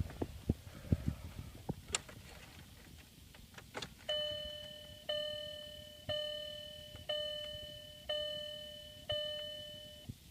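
Volkswagen dashboard warning chime dinging six times, about once a second, each ding fading away, with a few light clicks before it. The car has just started and immediately stalled, and is in a crank-no-start condition.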